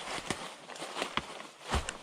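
Footsteps crunching over the forest floor, uneven and irregular, with a couple of sharp snaps and a heavier thump near the end.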